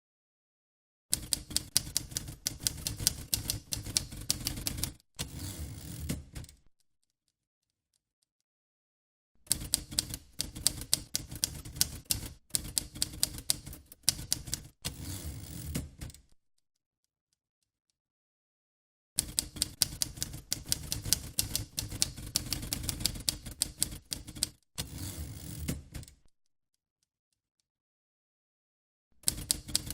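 Vintage typewriter keys typing out fast runs of sharp key strikes. There are three runs of several seconds each, separated by dead silence, and a fourth begins near the end.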